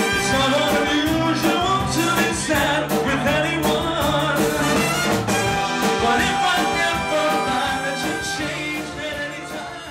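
Live band music with a lead singer, trumpet and horns, keyboards, electric guitar and drum kit playing together; the music gets quieter over the last couple of seconds.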